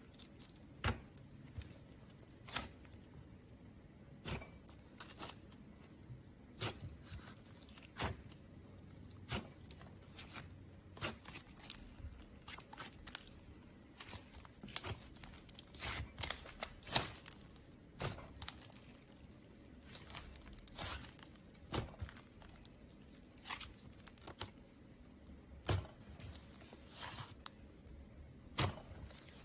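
Slime with clay mixed in, kneaded and stretched by hand, giving irregular sharp pops and crackles, about one or two a second.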